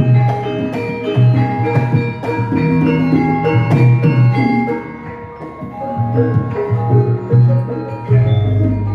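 Javanese gamelan ensemble playing a gending: bronze keyed metallophones strike ringing notes in many layers over deep, sustained low tones. The playing softens briefly about midway, then swells again.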